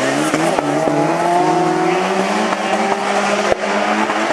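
Racing engine of a Spezial-Crosser autocross buggy (over 1600 cc class) revving hard as it accelerates away on loose gravel, its note climbing, dropping back at a gear change about two seconds in, and climbing again. Scattered sharp clicks and one louder crack about three and a half seconds in.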